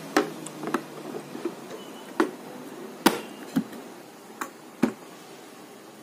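Clicks and knocks of hard plastic, about seven of them scattered over a few seconds, from handling the clear plastic dust container of a Philips PowerPro Compact bagless vacuum cleaner.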